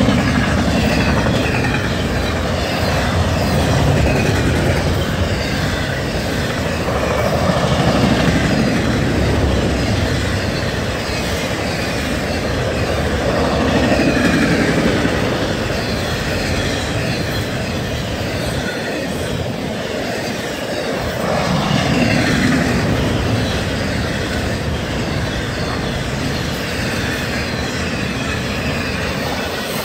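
Cars of an intermodal freight train passing at about 70 mph: continuous rolling wheel-on-rail noise with clicking over the rails, swelling and easing every few seconds as groups of car wheels go by.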